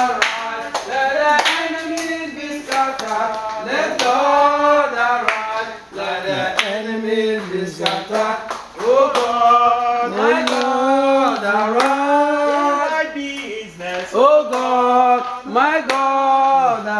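People singing a church song with hand clapping in time, the claps sharp against the sung melody.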